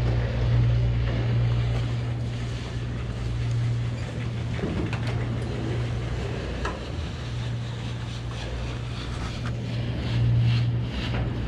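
Hardtail mountain bike riding down a dirt trail: tyres rolling and the bike rattling, with scattered sharp clicks and knocks over bumps, over a steady low rumble.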